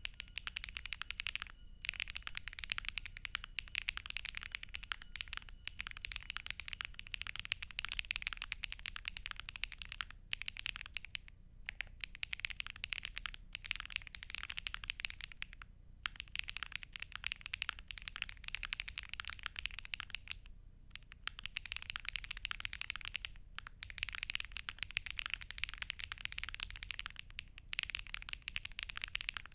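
Fast, continuous typing on a Crush80 mechanical keyboard, fully foam-filled and fitted with HMX Macchiato switches: a dense patter of keystrokes broken by brief pauses several times.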